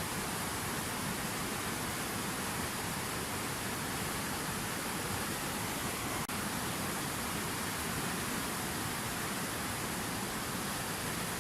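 Water from a fountain waterfall falling and splashing in a steady, unbroken rush, with a brief dropout about six seconds in.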